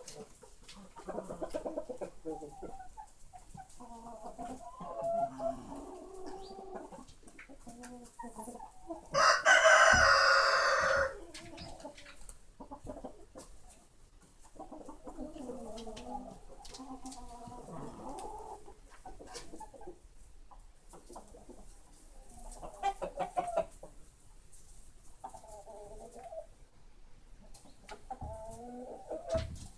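Chickens clucking on and off. About nine seconds in, a rooster crows once, a loud call of about two seconds and the loudest sound here.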